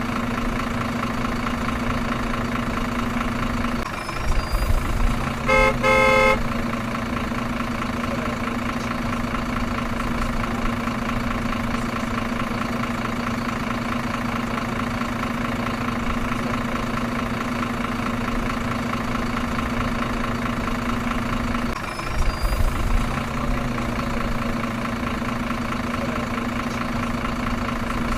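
Truck engine idling steadily, with brief louder rumbles about four seconds in and again near 22 seconds. A horn honks in a few short blasts around five to six seconds in.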